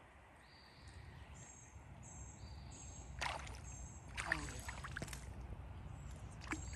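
A small hooked fish splashing at the river surface as it is reeled in, two short splashy bursts about a second apart.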